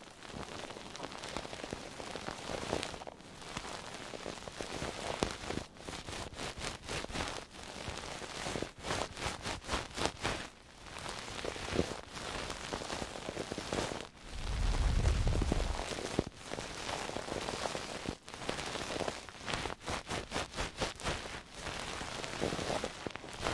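Close-up ASMR trigger sounds: crackly rubbing and scratching right against the microphone in quick repeated strokes, with a low bump on the microphone about fifteen seconds in.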